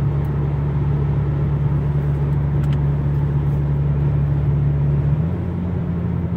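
Inside the cabin of a 2015 Chrysler 200S with a 3.6 Pentastar V6 and a muffler delete, cruising at highway speed in ninth gear around 1500 rpm: a steady, mellow low exhaust rumble over road noise, without drone. About five seconds in the note steps up slightly and gets a little quieter.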